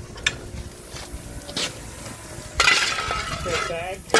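A steel shovel scooping anthracite coal and feeding it into a coal-fired steam boiler's firebox. Two sharp clinks of coal on metal come first, then a longer scraping rattle from about two and a half seconds in, ending in a hard knock.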